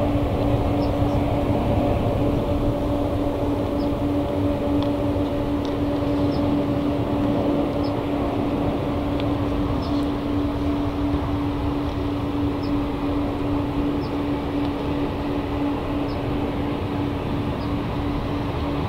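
Jet airliner engines running steadily at low taxi power across the airfield: an even rumble with a steady low hum.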